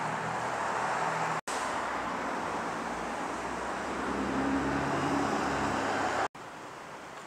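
Street traffic: a steady rush of passing vehicles with a low engine hum that swells in the middle. The sound cuts out twice for an instant, about a second and a half in and near the end, and is quieter after the second break.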